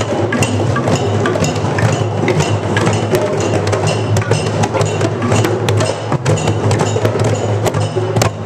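A group of djembe drums played together by hand, a dense, continuous stream of hand strikes on the goatskin heads.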